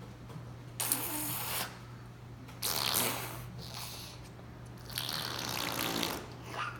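A little girl making silly breathy blowing noises with her mouth, three bursts of about a second each.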